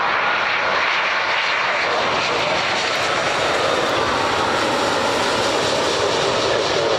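Boeing 787 airliner's Rolls-Royce Trent 1000 turbofan engines running steadily as the jet passes low and close on its landing flare, a continuous jet noise that grows a little brighter about halfway through.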